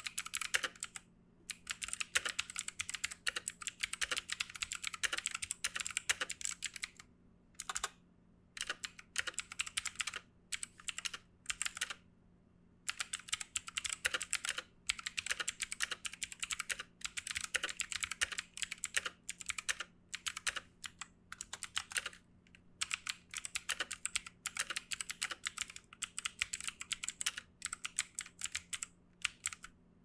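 Two-handed typing on a Langtu G1000 61-key mechanical keyboard: rapid clacking keystrokes in runs of a few seconds, broken now and then by short pauses.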